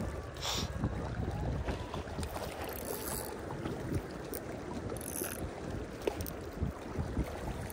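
Wind rumbling on the microphone over choppy lake water lapping, with a few brief hisses of splashing.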